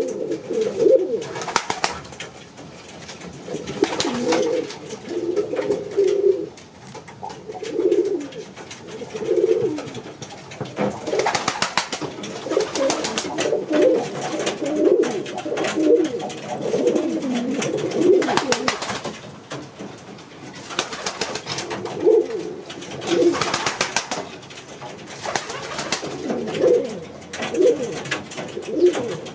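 Dutch Thief Pouter pigeons cooing over and over in low rolling coos, with a few brief sharp rustles between them.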